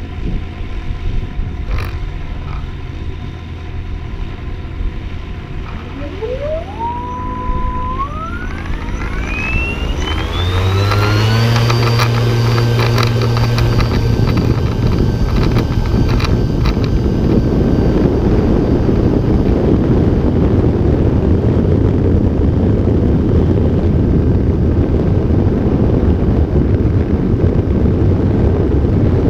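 Electric motor and propeller of a Synchronus Goat ultralight powering up for takeoff. A whine rises steadily in pitch for about five seconds, starting about six seconds in. From then on the propeller runs at full power with a steady drone and a rush of wind noise through the takeoff roll and climb-out.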